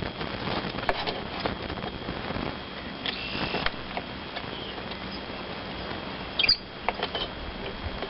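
Scattered small metallic clicks and a few short, high squeaks as a size 5 Allen key drives the end-cap bolts into an HMF slip-on exhaust.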